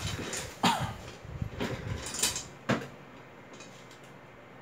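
Handling noises from an RC truck being worked on by hand: several sharp knocks and scrapes, one with a short squeak about a second in, then quiet room tone for the last second and a half.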